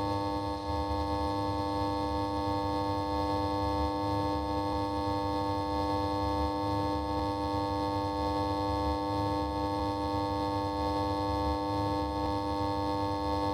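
Neon light humming: a steady electrical buzz made of several fixed tones that does not change, with faint ticks about every two and a half seconds.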